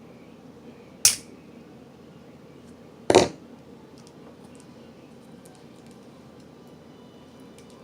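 Two sharp metal clacks about two seconds apart, the second a little longer, as a spring-loaded hand tool is worked; its spring is stuck, so the tool does not pop open.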